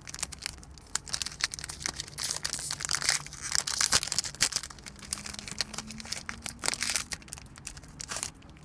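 Foil wrapper of a football trading-card pack being torn open and crinkled by hand: a dense, irregular crackling that stops shortly before the end.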